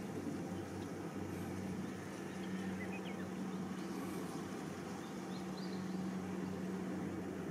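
Quiet rural ambience: a faint, steady low hum of a distant engine, with a few brief bird chirps.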